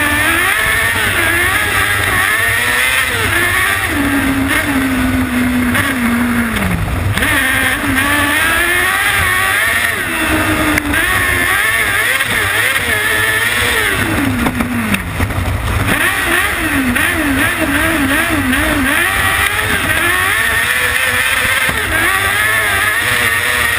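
Kart cross buggy's 600cc Yamaha R6 inline-four motorcycle engine heard onboard at racing speed: the pitch climbs and falls over and over with throttle, gear changes and corners, with a quick rapid wobble in revs near the end. A constant rush of wind and track noise runs under it.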